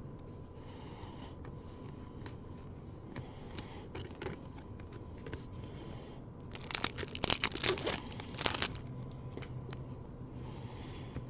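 Trading cards being handled and flipped through, with light clicks and rustles, and a louder spell of crinkling packaging a little past the middle.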